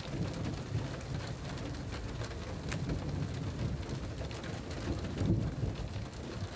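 Rain falling steadily, with scattered sharp ticks of drops striking and a low rumble underneath.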